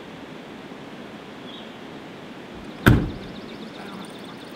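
A van door slammed shut once, about three seconds in: a single sharp thump with a short ring-out, over steady background noise.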